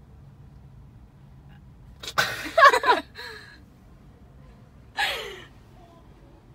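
A person's loud wordless cries: a yelling outburst about two seconds in that lasts under a second, then a shorter cry falling in pitch about five seconds in.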